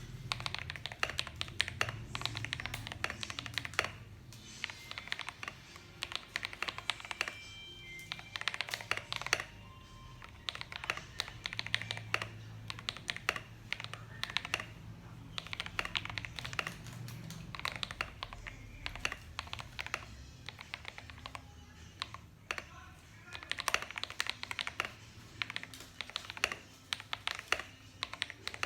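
Mechanical keyboard being typed on with a deep, thocky key sound: quick runs of keystrokes in bursts with short pauses between them.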